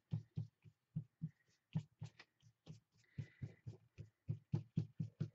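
Paintbrush working acrylic paint onto a paper journal page on a tabletop: a run of soft, uneven low thumps, about four a second.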